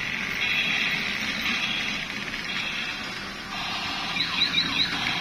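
Electronic sound effects from battery-operated transforming robot toys: a crackly, buzzing electronic noise, then a quick run of falling laser-like zaps about four seconds in.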